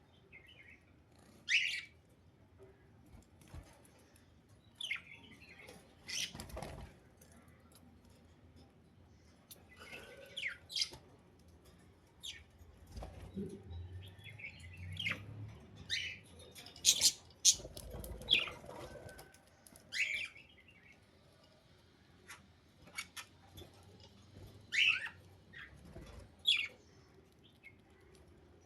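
Pet budgerigars giving short, scattered chirps, mixed with several sharp noises.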